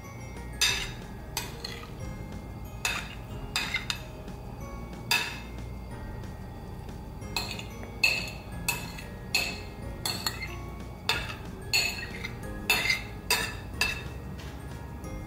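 Metal fork clinking and scraping against a ceramic plate as coleslaw is pushed off it into a glass bowl: about twenty sharp, irregular clinks, each with a short ring.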